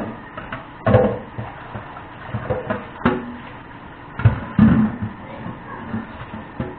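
A string of irregular knocks and clatters of hard objects being handled and set down, some with a brief ring.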